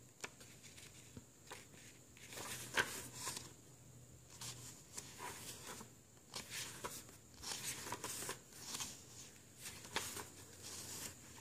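Pages of a paper guidebook being turned by hand, with soft, scattered paper rustles and flicks.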